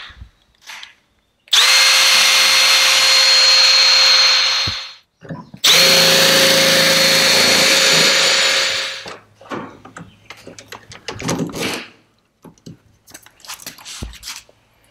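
Cordless drill running in two steady bursts of about three seconds each, each spinning up quickly to full speed. Light clicks and knocks follow as the parts are handled.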